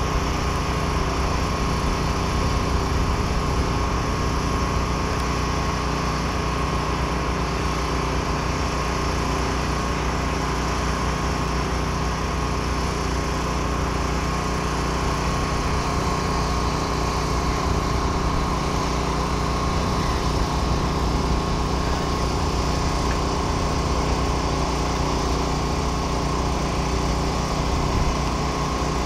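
An engine running steadily throughout, with a constant low rumble and a steady whine that holds one pitch.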